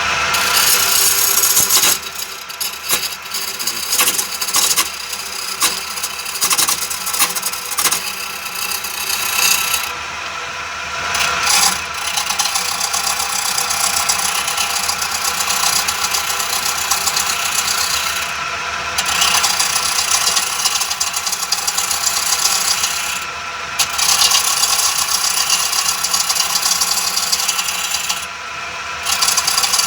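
Homemade wood lathe spinning a wooden workpiece while a hand-held chisel cuts it: a continuous rasping scrape of wood shaving over the lathe's steady motor whine. The cutting stops for a moment a few times as the tool is lifted.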